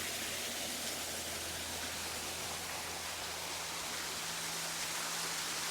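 Steady rushing of a waterfall, an even hiss of falling water with a faint low hum beneath it.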